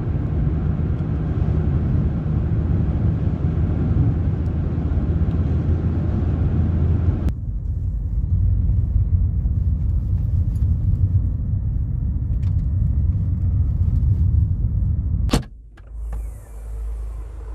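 Car cabin noise while driving: a steady low rumble of engine and tyres on the road. It changes in tone about seven seconds in. A sharp click comes about fifteen seconds in, after which only a quieter low hum remains.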